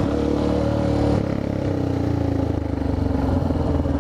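Motorcycle with a loud exhaust running at low speed, its engine note steady and then sinking a little in pitch after about a second as it eases off.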